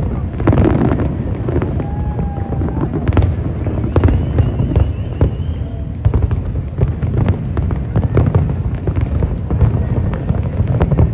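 Fireworks display: a dense, continuous run of sharp bangs and crackles over a constant low rumble.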